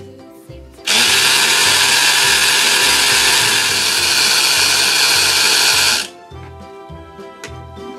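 Background music with a steady beat. About a second in, a loud, even hissing whir starts suddenly, runs for about five seconds and cuts off abruptly.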